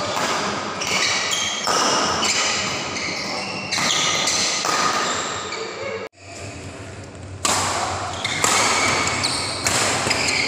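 Badminton rally: rackets striking the shuttlecock in sharp, echoing hits every second or two, with players' footwork on the court. The sound drops out abruptly about six seconds in, then the hits resume.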